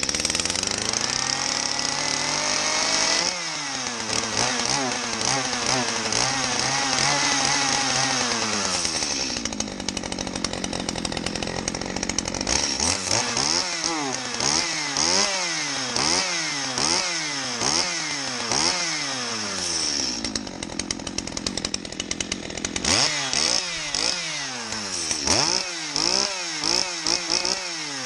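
Stihl MS211 35cc two-stroke chainsaw running on fresh fuel: held at high revs, settling to idle about ten seconds in, then blipped up and down about once a second in two runs of quick throttle revs. It runs cleanly; fresh fuel is all it needed.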